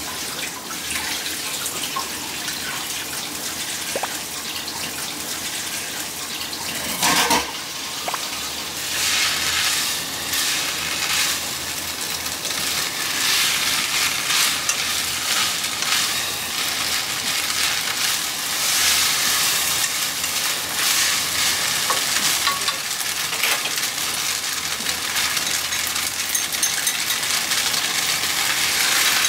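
Pork and vegetables stir-frying in sesame oil in a pan: a steady crackling sizzle that grows louder after about nine seconds, with stirring and one brief loud knock about seven seconds in.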